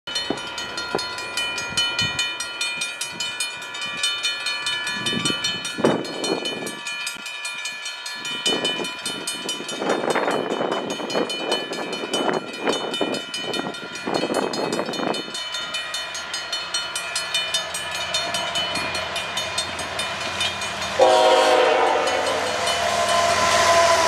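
Level-crossing bells ringing steadily as a GE-powered freight train approaches, with a rumbling noise that rises and falls. About 21 seconds in the locomotive horn gives one short toot, then the locomotives' engines and wheels run loud as they pass the crossing.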